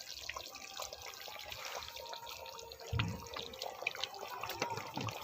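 Curry gravy boiling in a pan, bubbling with many small pops and spits, with a short low thud about three seconds in.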